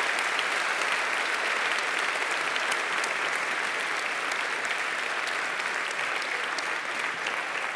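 Audience applauding steadily: many hands clapping at once, with no break.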